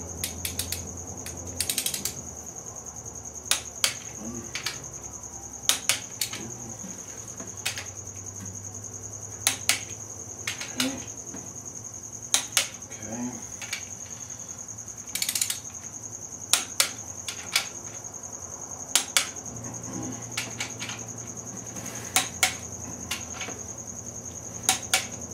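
Torque wrench on the main bearing cap bolts of a Ford 302 V8, set to 30 for the first tightening step: sharp ratchet and wrench clicks, mostly in pairs or short sets spaced a second or more apart, over a steady high-pitched whine.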